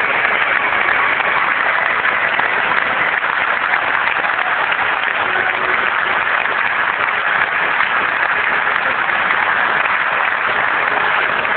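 Theatre audience applauding steadily, a dense, even wash of clapping for the cast's curtain call.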